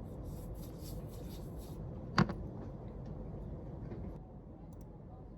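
Low, steady room noise with one sharp knock or click about two seconds in, and a few faint ticks near the end.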